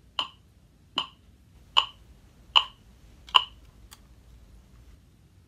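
Metronome clicking at a steady beat, five clicks about 0.8 s apart, then it stops a little over three seconds in.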